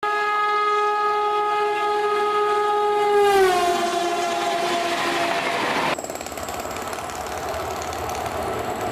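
A WAP-7 electric locomotive's horn blowing one long steady blast whose pitch drops about three and a half seconds in as the locomotive passes at speed, followed by the rushing noise of the passenger coaches going by. About six seconds in it cuts to another electric train approaching: a steady rail rumble with a thin, high, steady whine.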